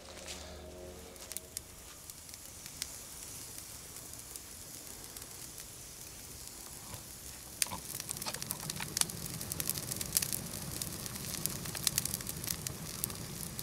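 Campfire of dry twig kindling catching alight, lit with a methylated-spirits-soaked dressing: a steady hiss of flame at first, then from about eight seconds in the kindling crackles with many quick sharp snaps as it takes.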